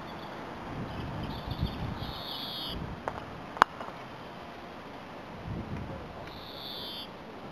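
Croquet mallet striking a ball: one sharp clack a little over halfway through. A bird calls twice in the background, once before the strike and once near the end.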